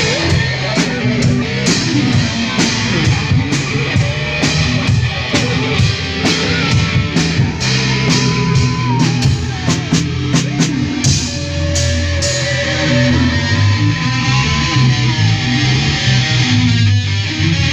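Rock music with guitar and a drum kit. The drums keep a steady beat with cymbal hits until about two-thirds of the way through, then drop out, leaving sustained guitar notes that bend in pitch.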